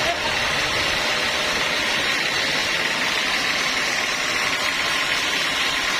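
Sawmill machinery running steadily: a constant engine-like drone with a steady high whine over it.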